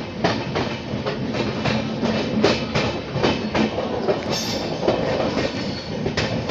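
Passenger express train rolling out of a station: its coach wheels clatter over rail joints and points in a quick, regular clickety-clack, about two to three clicks a second, over a steady running rumble.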